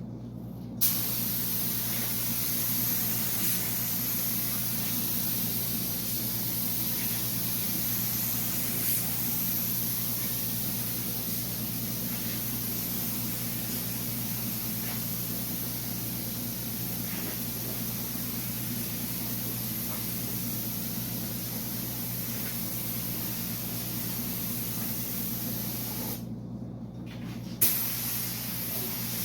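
Paint spray gun hissing steadily as primer is sprayed, the trigger held for long passes; near the end the spray stops for about a second and a half, then starts again. A steady low hum runs underneath.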